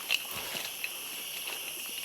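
Steady high-pitched chorus of insects, with a few sharp crackles near the start.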